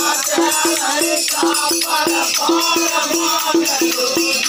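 Rai folk music: a pitched drum beating a steady rhythm of about four strokes a second, with jingling, rattling percussion and a singing voice over it.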